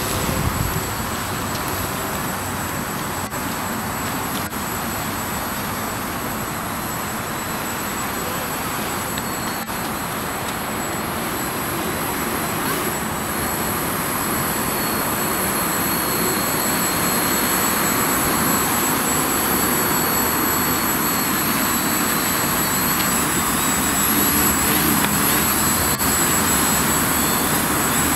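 Electric motors and propellers of a DIY quadcopter whirring steadily in flight, with a thin high whine on top, growing gradually louder over the second half as the craft comes close.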